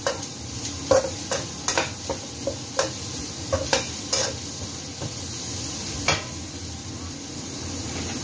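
Vegetables stir-frying in a wok: a metal spatula clinks and scrapes against the pan in irregular strokes over a steady sizzle. The strokes stop about six seconds in, leaving only the sizzle.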